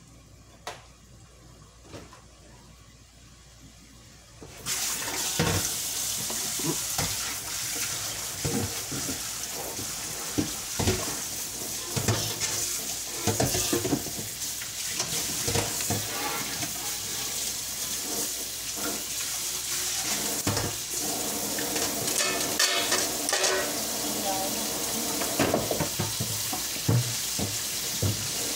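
Salted cutlassfish pieces frying in hot oil in a frying pan: a sudden sizzle starts about four and a half seconds in and keeps going, with spitting crackles and occasional knocks of the pan and utensils.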